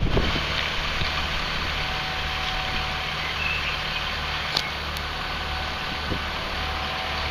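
JCB 57C-1 mini excavator's diesel engine running steadily at idle.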